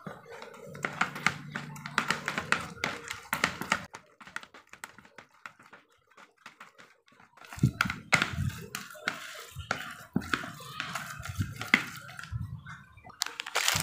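A plastic spatula stirring and scraping a crumbly boiled carp-bait mix in a plastic bowl, with irregular taps and scrapes against the bowl's side. It stops for a few seconds of near quiet about midway, then starts again.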